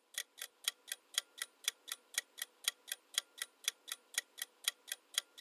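Quiz countdown-timer sound effect: clock-like ticking at about four ticks a second, alternating louder and softer like a tick-tock.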